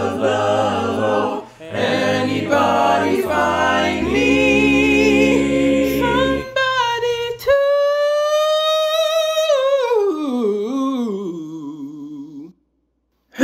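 Male a cappella group singing a held, full chord over a low bass line. About six and a half seconds in the group drops out, leaving a solo male voice holding a high note, then running down in a falling, wavering melisma that cuts off just before the end.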